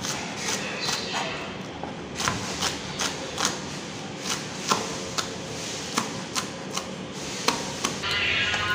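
A chef's knife chopping spring onions on a plastic cutting board: uneven sharp knocks of the blade on the board, about two or three a second. Near the end the chopping gives way to a steady sizzle of small dried fish (tuyo) frying in oil in a wok.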